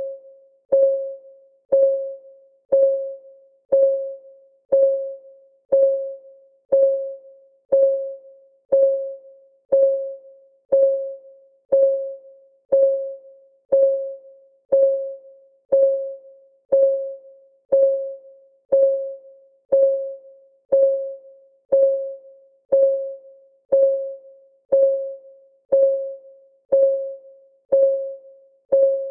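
Clock ticking sound effect at about one tick a second, each tick a short pitched click that rings briefly and dies away, in an even, unbroken rhythm.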